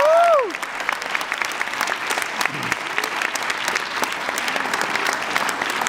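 Audience applauding, a steady patter of many hands clapping, with a brief whooping cheer that rises and falls right at the start.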